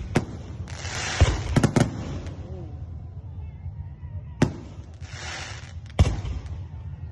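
Fireworks going off: about six sharp bangs, with two stretches of crackling hiss between them, one about a second in and one near the end.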